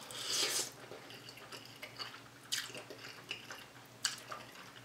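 Wet mouth sounds of a person eating spicy Samyang noodles: a hissing slurp about half a second in, then soft wet smacks and clicks of chewing, with another short slurp about two and a half seconds in.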